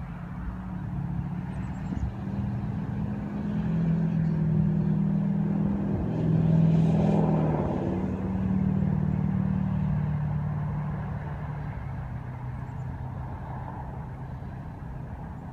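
Diesel locomotive engine drone as a train passes, building to its loudest about halfway through and then slowly fading away; no horn is sounded.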